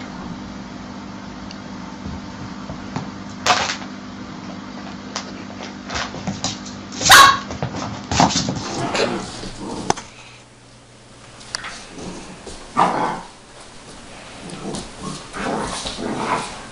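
A dog yipping and barking in short scattered calls, the loudest about seven seconds in, over a steady low hum in the first half.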